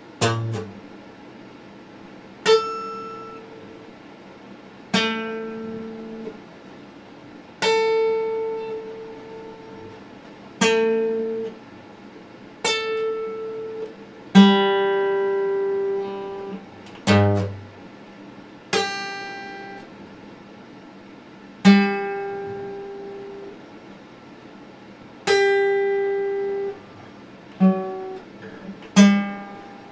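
Steel-string acoustic guitar played slowly: plucked notes about every two and a half seconds, each left to ring and fade, with a few quicker, shorter notes near the end.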